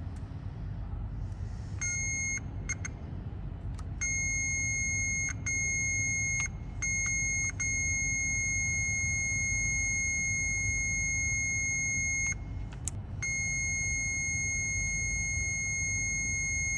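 Digital multimeter's continuity beeper sounding a steady high tone while its probes are held on a diesel glow plug's body and tip. The tone starts about two seconds in and cuts out briefly several times as the probe slips off the awkwardly placed tip. The steady beep signals continuity: a good glow plug with low resistance.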